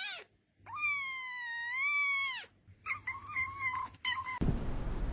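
A cat meowing: one long, drawn-out yowl that rises and falls, then a quick string of short meows that stops abruptly near the end.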